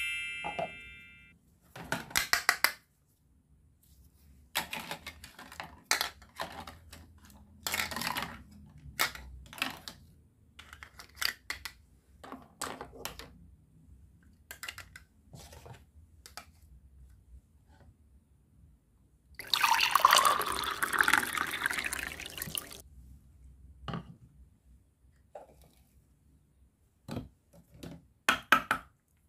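Plastic toy kitchen pieces being handled: scattered clicks and knocks of toy vegetables, pot and bowl. About twenty seconds in, a few seconds of running water, likely from the toy faucet.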